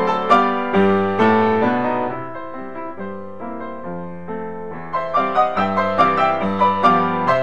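Solo piano music: quick runs of notes at first, slower held chords in the middle, then quick notes again from about five seconds in.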